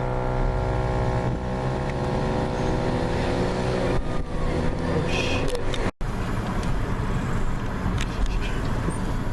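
Vehicle engine running steadily with a low hum; the sound drops out for an instant about six seconds in.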